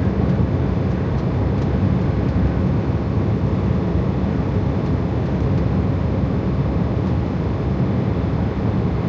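Steady drone of a Freightliner Cascadia semi truck cruising at highway speed, engine and road noise heard inside the cab.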